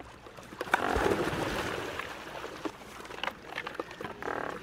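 A group of great white pelicans splashing as they plunge into the water together after a thrown fish, with a burst of splashing about a second in. A short pitched call sounds near the end.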